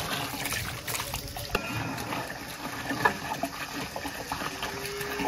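Water being poured into a large pot of biryani masala, a steady trickling and splashing.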